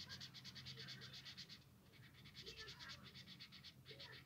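Felt-tip marker scribbling quickly back and forth on paper, about ten strokes a second. It comes in two runs with a short pause between them and a brief third run near the end, and it is faint.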